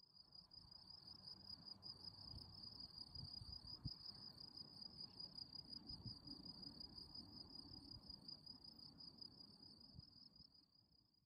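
Faint, steady high-pitched trill of crickets, unbroken through the whole stretch, over a faint low rumble.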